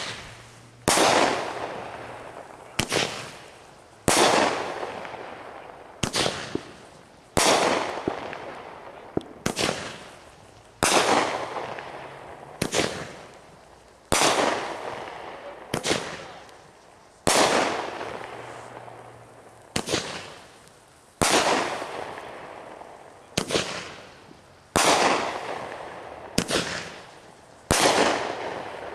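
A consumer firework cake firing its shots one after another, with a sharp bang about once a second. Each bang trails off in a fading hiss.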